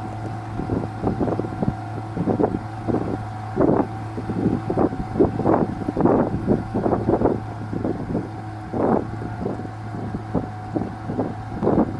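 A boat engine running with a steady low hum, while irregular gusts of wind buffet the microphone.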